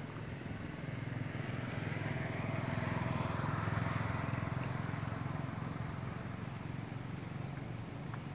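A motor vehicle's engine passing by: a steady low engine hum that grows louder toward the middle and then slowly fades.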